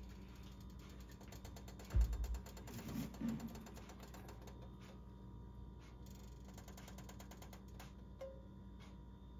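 Empty nonstick frying pan heating on an electric stove, giving faint irregular ticking and creaking. A dull thump about two seconds in.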